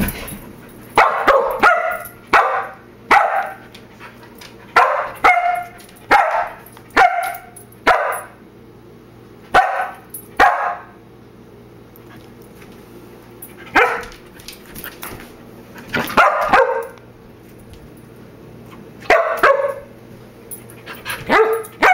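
Samoyed puppy barking repeatedly, often two barks close together, with pauses of a few seconds between runs. The barks are attention-seeking: the puppy wants the cat to play with him.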